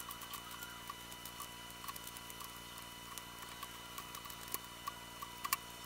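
Small irregular clicks and ticks as needle-nose pliers pick and snap white 3D-printed support material off a phone case, with scraps dropping into a steel tray, over a steady high-pitched electrical whine.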